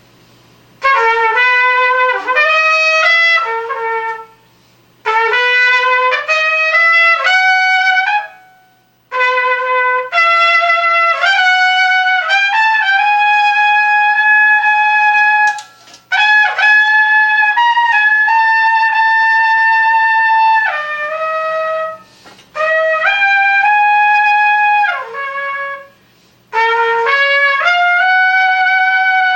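A single wind instrument, most likely a trumpet, playing unaccompanied in an improvised jazz style. It starts about a second in with phrases of climbing notes, then holds long, steady notes in the middle, and breaks off briefly between phrases.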